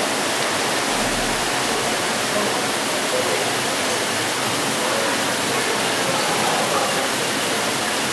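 Steady rushing of falling water from a water feature, an even hiss that does not change, with faint voices of visitors under it.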